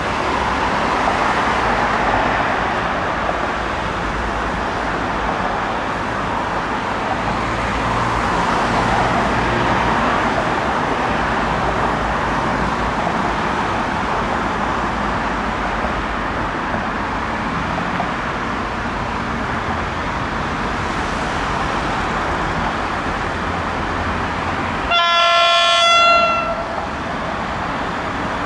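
A train running through the station with a steady rumble, then a single train horn blast of just over a second near the end, louder than the rumble.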